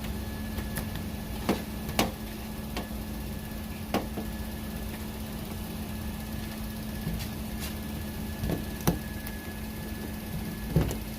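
Scattered sharp clicks and knocks, about half a dozen, from handling and fitting plastic car door-handle parts and their wiring into the door, over a steady low hum.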